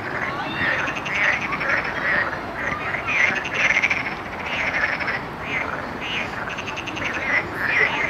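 A chorus of many frogs calling at once. The calls overlap and repeat one after another, each a quick train of rapid pulses.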